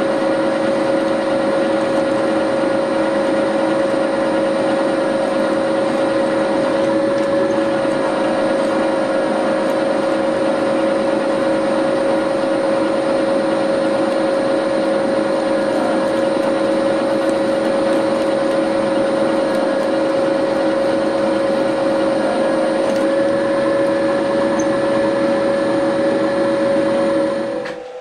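Turret milling machine spindle running steadily while a twist drill in its chuck drills a hole in a small steel valve-gear part, with a constant hum and whine. The machine stops just before the end.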